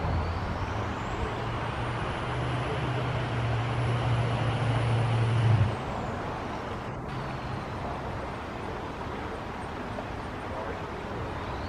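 Low engine hum of a nearby motor vehicle, growing louder over several seconds and dropping off sharply about halfway through, over a steady rushing noise.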